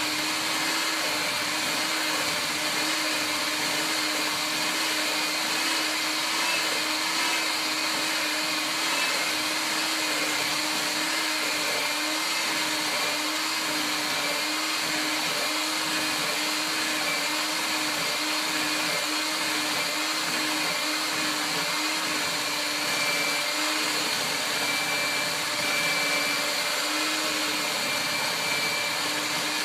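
Electric hand mixer running steadily, its beaters whipping egg yolks and sugar in a bowl, with a motor hum that wavers slightly in pitch.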